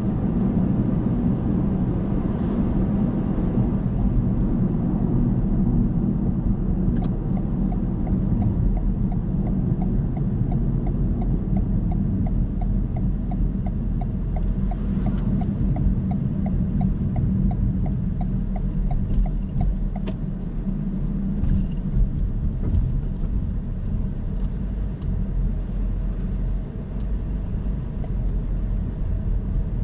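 Car driving along a road: a steady rumble of engine and tyres. For about ten seconds in the middle there is a regular ticking, about two a second.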